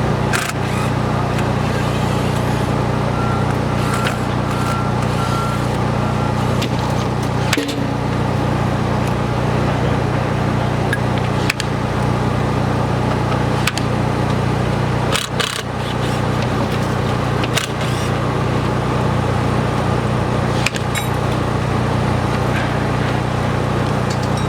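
A steady, loud low drone from running machinery, with scattered short clicks and knocks of work on top.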